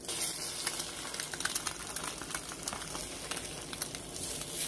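A just-flipped egg frying in a nonstick pan, sizzling steadily with many small crackles from the hot oil as the whites cook through for an over easy egg.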